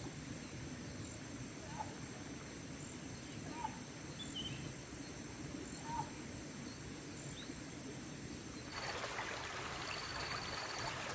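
Outdoor rural ambience: a steady high insect drone with a short chirp every couple of seconds. Near the end the background changes abruptly to the hiss of trickling ditch water.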